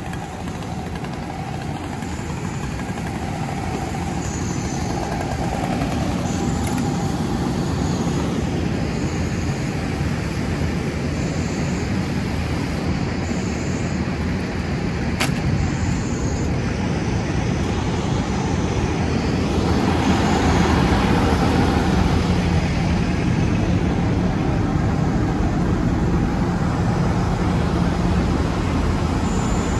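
Fire engine's engine and pump running while a hose line sprays water onto a burned car: a loud, even rumble and rush that grows slowly louder, with a single sharp click about halfway through.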